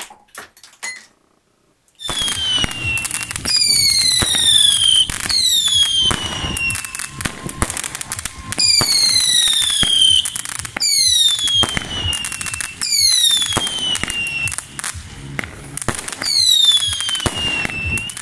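Fireworks going off: about eight whistling shots, each a falling whistle lasting a second or so, with sharp cracks and crackling in between. This starts about two seconds in, after a few short clicks and a moment of silence.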